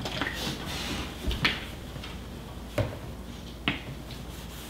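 Plastic ketchup and mustard squeeze bottles being handled and knocked on a tabletop: a few sharp clicks and knocks about a second apart, over a low steady hiss.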